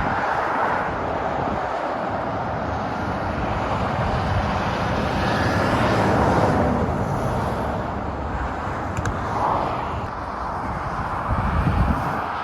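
Motorway traffic passing, a steady rush of tyre and engine noise that swells as a vehicle goes by about halfway through, then eases.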